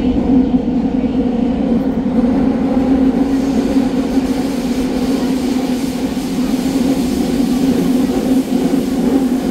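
Fukuoka City Subway N1000 series train running at a steady speed, heard inside the car: a loud, even running rumble with a steady low hum and no rise or fall in pitch.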